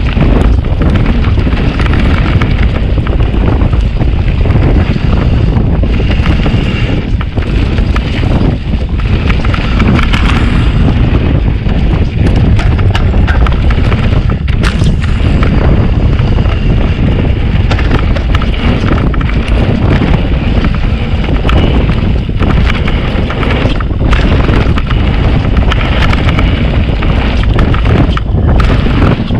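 A mountain bike riding down a dirt trail: wind buffeting the microphone over a steady rumble of tyres on the ground, with the bike rattling in many quick knocks.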